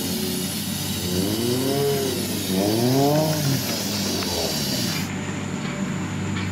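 Aerosol spray can hissing in one long blast as cleaner is sprayed onto an engine block, cutting off suddenly about five seconds in. Under the hiss, a car engine revs up and falls back twice.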